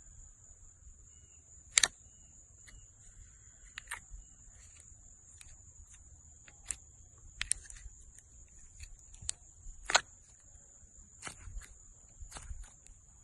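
Transparent slime being squeezed and poked, making sparse sharp clicks and pops, the loudest about two and ten seconds in. A steady high-pitched tone runs underneath.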